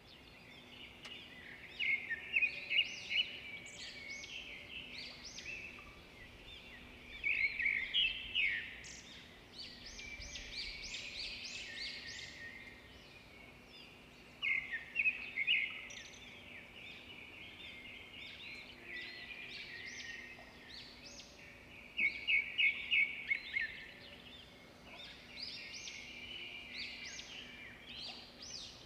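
Birds chirping in repeated bursts of quick, high notes and short trills, with a faint steady hum underneath.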